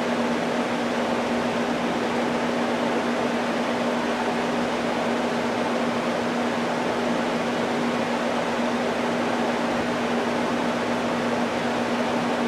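Steady machine hum: one constant low tone over an even hiss, unchanging.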